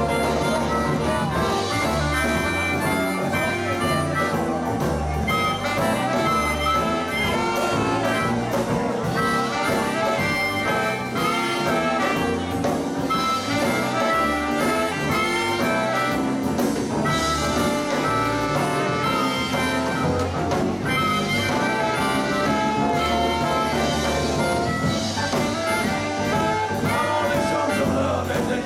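Live blues band playing: electric guitar, keyboard, drums and saxophone, with a steady drum beat and a wind-instrument lead, loud and continuous.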